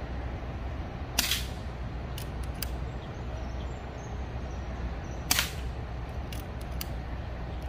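Two air rifle shots about four seconds apart, each a sharp crack, with a few fainter clicks after them over a steady low background rumble.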